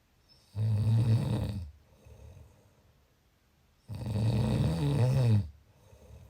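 A person snoring: two long, low snores about three seconds apart, the second one longer, each followed by a soft breath out.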